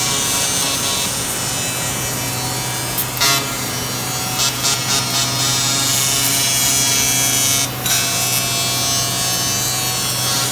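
Electric arc welding on an aluminium stage truss: a steady hissing buzz over a low hum, with a few short crackles about three seconds in, around five seconds and near eight seconds.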